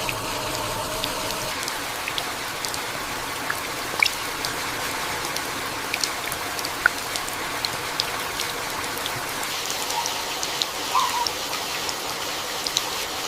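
Steady heavy tropical rain falling on forest foliage: an even hiss with many scattered sharp drips of single drops close by.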